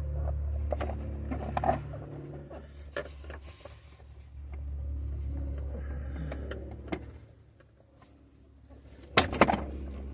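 Scattered light clicks and knocks of plastic trim and hand tools being handled on a Jeep Wrangler TJ's interior, over a steady low hum that drops away for a couple of seconds. A sharp clatter near the end is the loudest sound.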